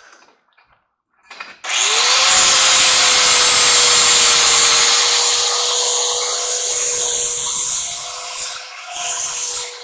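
4.5-inch angle grinder starting up about a second and a half in, its whine rising quickly to a steady pitch, then grinding metal with a loud hiss. The grinding eases and comes and goes near the end.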